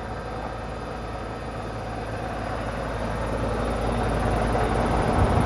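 Frosted-up 2004 Goodman heat pump running: a steady low hum and whir, growing gradually louder over the last couple of seconds.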